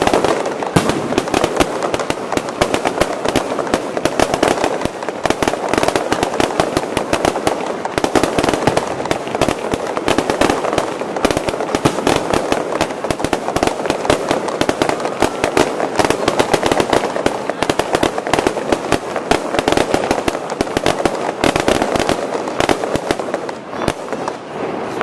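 Fireworks display: a dense, continuous run of bangs and crackles, many reports a second, from aerial shells bursting overhead.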